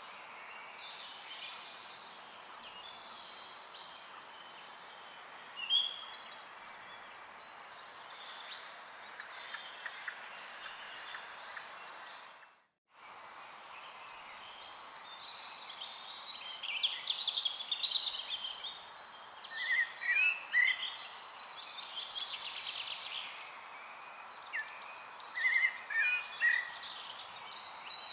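Several songbirds chirping and trilling over a steady outdoor hiss, with the sound cutting out completely for a moment about halfway through.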